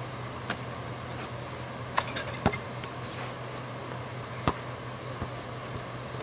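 A basketball knocking off a portable hoop's backboard and rim and bouncing: one knock about half a second in, a loud cluster of knocks and metallic clinks about two seconds in, and another single knock about four and a half seconds in. A steady low hum runs underneath.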